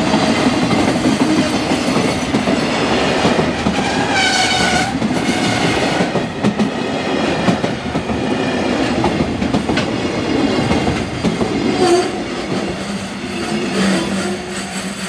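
Long freight train of container flatcars running past at speed, its wheels clattering over the rail joints. A brief high ringing tone comes about four seconds in. The sound eases a little near the end as the last wagons pass.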